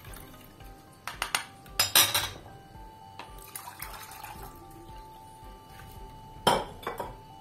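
A metal spoon knocking against a plastic sieve and glass bowls while citrus juice is strained: a few clicks about a second in, a louder clatter near two seconds, and another knock near the end, with juice being poured through the sieve in between.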